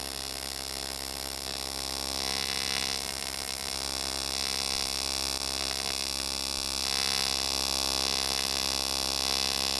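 AC TIG welding arc on aluminum from an Eastwood TIG 200 AC/DC welder, a steady buzz that swells slightly now and then, as filler rod is added to build up curb rash on an aluminum wheel's edge.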